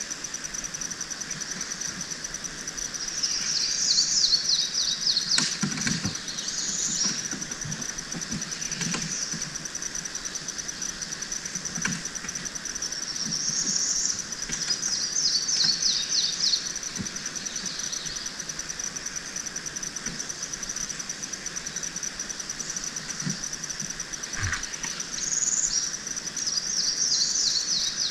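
Swamp ambience: insects keep up a steady, high, rapidly pulsing trill while a songbird sings a fast run of chirping notes three times, each phrase lasting a few seconds. A few soft knocks come in between.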